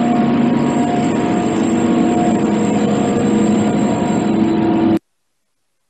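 Steady mechanical hum of building machinery, a noisy rush with a few held tones, cutting off abruptly about five seconds in.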